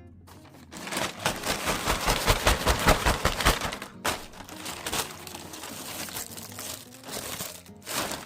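Packaging crinkling and crumpling as a parcel is handled and opened. It starts about a second in and is loudest for the next few seconds, stops briefly about four seconds in, then goes on more softly with another short break near the end.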